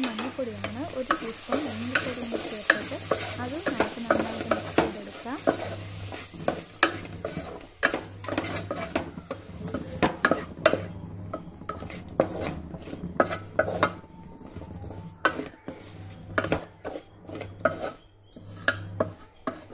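Wooden spatula scraping and knocking against a metal pan as onions, tomatoes and spices are stirred over the heat, with the food sizzling. The sizzle is stronger in the first half and thins after about ten seconds, while the scraping goes on.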